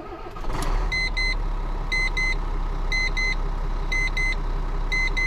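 Volvo FH truck's diesel engine running just after starting, stepping up in level about half a second in and then running steadily. A double electronic beep repeats about once a second over it.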